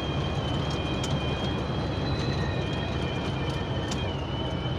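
Cab of a truck driving on the highway: steady engine and road rumble, with a thin high whistle in the cab that holds on one pitch, wavering slightly.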